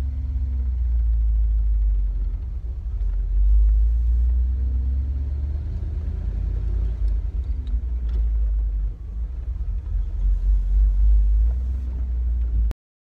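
1991 Chevy C3500 rollback tow truck heard from inside the cab while driving: a deep engine and road rumble whose pitch rises and falls a few times. It cuts off suddenly near the end.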